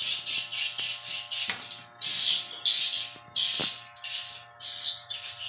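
Edible-nest swiftlets' rapid, high chirping trills in repeated bursts, quick and pulsing at first, then in longer separate phrases. A faint steady hum runs underneath, with a couple of soft clicks.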